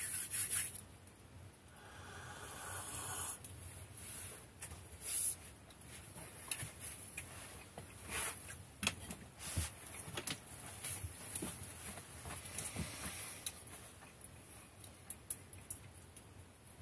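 Quiet small room with scattered faint clicks and crackles, and a short rustle about two seconds in.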